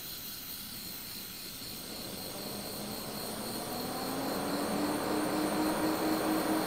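Two cooling fans in a battery case spinning up, their hum and rush of air rising in pitch and loudness from about two seconds in, as the thermostatic fan controller reacts to heat on its thermocouple.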